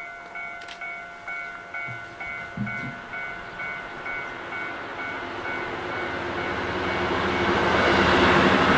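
A railway warning bell dings about twice a second and fades as a KiHa 183 series diesel multiple unit approaches. The train's engine and wheel noise swells steadily and is loudest near the end as it passes close.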